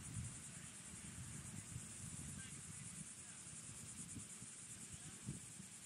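A steady, high-pitched chorus of insects trilling in rapid pulses, over a faint, uneven low rumble.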